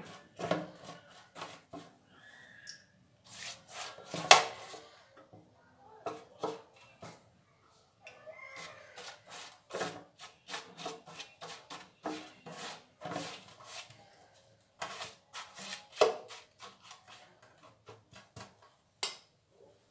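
Silicone pastry brush dabbing and rubbing melted ghee over phyllo sheets in an aluminium baking tray: soft brushing with irregular light taps and clicks, the sharpest about four seconds in and again near sixteen seconds.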